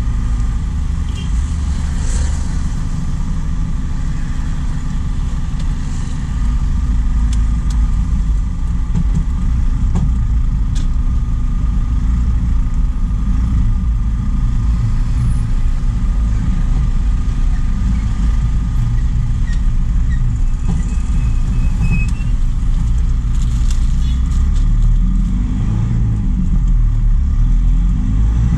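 Truck under way: its engine and road noise make a steady low rumble, with a constant hum and a faint whine held throughout.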